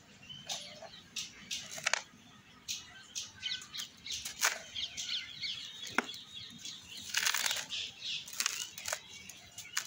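Dry moulded cups of yellow soil crushed in the hand: crisp crackles and gritty crunches, with fine powder sifting down in bursts of hiss near the end.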